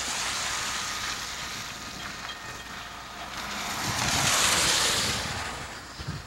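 Cars driving past on a wet road, their tyres hissing on the wet pavement: the hiss swells just after the start and again, louder, about four to five seconds in.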